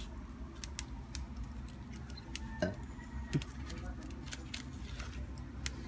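Firewood crackling and popping in an open cooking fire under a pot, with irregular sharp snaps scattered over a low steady hiss.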